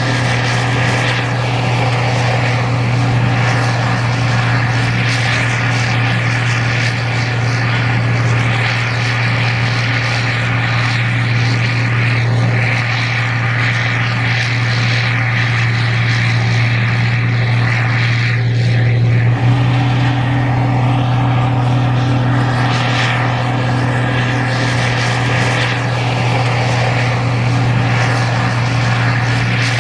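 Gleaner R52 combine running steadily while harvesting corn: a constant engine drone with a strong low hum, its pitch shifting slightly about two-thirds of the way through.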